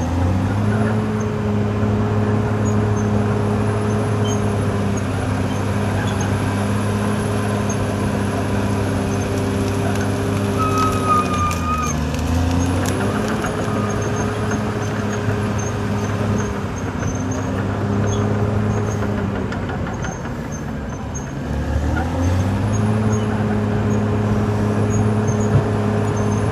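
Caterpillar D6R XL bulldozer's diesel engine running steadily at working revs, its pitch dipping briefly twice, near the middle and again about three quarters through. A short high squeal sounds near the middle.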